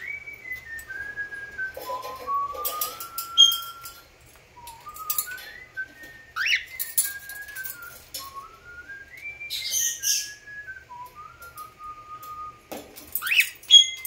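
Cockatiel whistling a tune of clear, stepped notes that rise and fall, running on without a break. Sharp rising chirps cut in twice, about six and a half and thirteen and a half seconds in.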